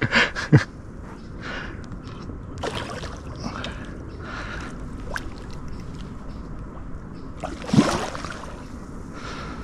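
Water splashing and sloshing in irregular bursts, the loudest about eight seconds in: a large carp thrashing at the surface while being played, still not tiring.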